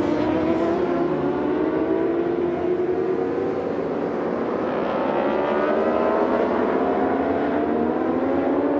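Racing motorcycle engines at high revs, several superbikes going by on track, their pitch climbing steadily as they accelerate.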